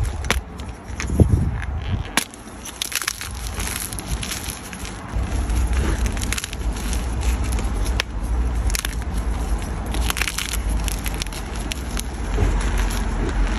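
Blocks of gym chalk being crushed: a run of sharp crunches and crackles, over a steady low rumble of wind on the microphone that grows stronger about halfway through.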